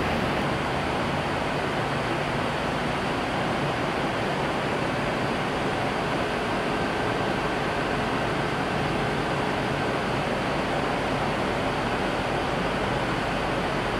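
Many small cooling fans spinning together: a steady, even rush of air noise, with faint thin tones joining in the middle.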